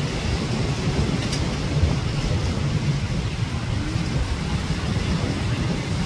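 Surf breaking and washing up a sandy beach, with wind buffeting the microphone in a steady low rumble.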